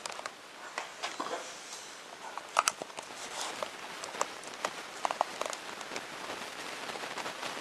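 Scattered light clicks and metallic clinks of the rifle's small metal parts and screws being handled on a wooden tabletop, with handling rustle. One sharp ringing clink about two and a half seconds in, and a few more short clinks around five seconds.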